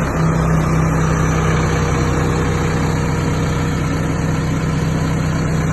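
Engine on an Elkin concrete mixer unit idling steadily, just after starting.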